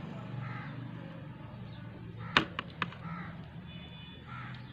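Hand-held onion cutter and sliced onion handled over a plastic tray: one sharp click a little over two seconds in, then two lighter ticks, over a low steady background hum.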